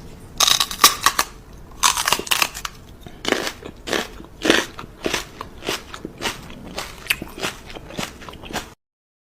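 Crisp crunching and crackling, like something crunchy being bitten and chewed close to the microphone, in an irregular series of sharp crunches.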